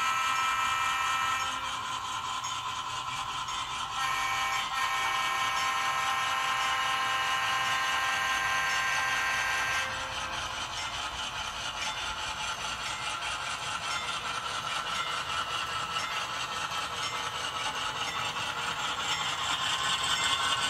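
HO scale model diesel locomotive and freight train running on the layout's track: a steady whine that shifts about 4 seconds in and gives way to a noisier rumble about 10 seconds in, over a fast clatter of wheels on the rails.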